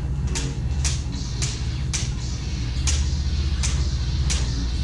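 Low steady hum of combat lightsabers' sound boards, broken by a series of sharp clicks about every half second to second.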